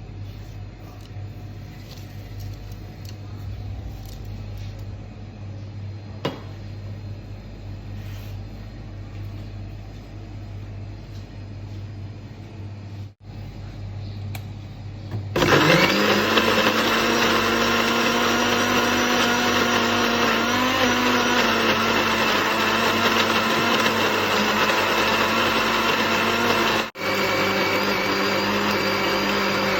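Electric blender or mixer grinder switched on about halfway through, spinning up with a rising whine and then running steadily at high speed, with a brief break near the end. Before it there are only a low hum and a few small clicks of handling.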